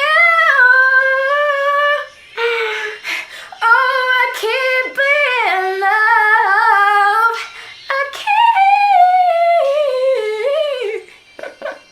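A woman singing solo without accompaniment, a long high note at the start, then wavering, bending runs in short phrases. She is singing with headphones in and cannot hear herself, so the pitch wanders.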